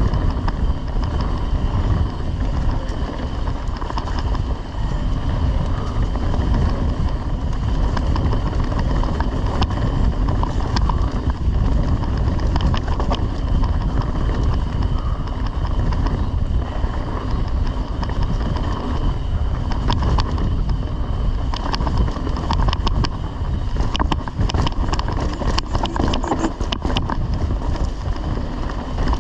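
Mountain bike rolling fast down a dirt trail: a steady rumble of wind on the microphone and tyres on dirt, with frequent sharp clicks and rattles from the bike, most numerous in the last third.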